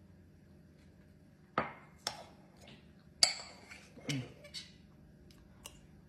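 Cutlery clinking against a plate while eating: about half a dozen sharp clinks spread out, with a brief low vocal sound near the middle.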